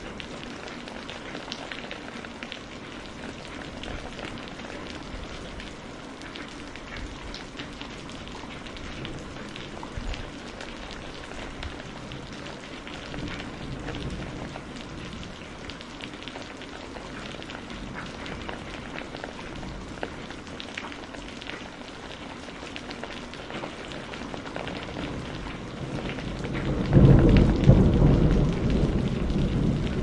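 Steady rain with scattered drop taps. Near the end comes a loud, low rumble of thunder.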